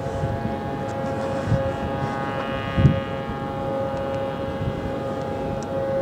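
Federal Signal 3T22 three-tone rotating civil defense siren sounding a steady alert chord, several tones held at constant pitch, with wind gusts on the microphone.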